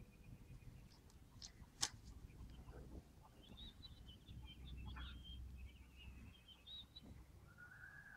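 Faint songbird twittering: a run of quick, broken high chirps through the middle seconds. A single sharp click comes just before it, about two seconds in.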